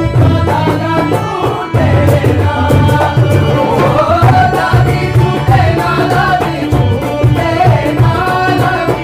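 Music: a song with a singing voice over a strong, steady drum beat.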